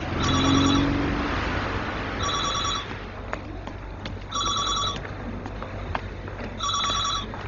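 Desk telephone ringing with an electronic trilled ring, four rings a little over two seconds apart. A broad swell of noise rises and fades in the first second and a half.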